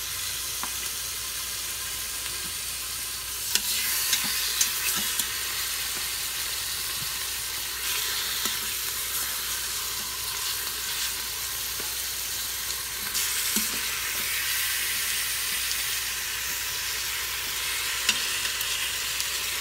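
Raw chicken thighs sizzling in hot olive oil in an Instant Pot's stainless steel inner pot on its sauté setting: a steady sizzle. A few sharp clicks of the tongs against the pot come through as the pieces are laid in.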